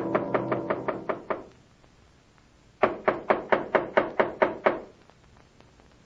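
Radio-drama sound effect of rapid knocking on a wooden door in two runs: about eight quick knocks fading under the tail of a brass music bridge, a pause, then about nine more knocks at an even pace.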